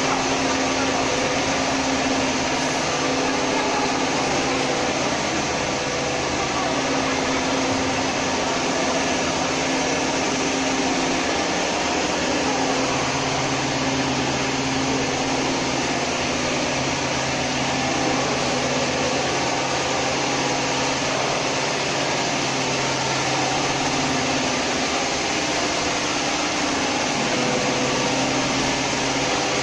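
Steady noise of factory machinery running: an even hiss with a constant low drone, and a deeper hum that joins about halfway through.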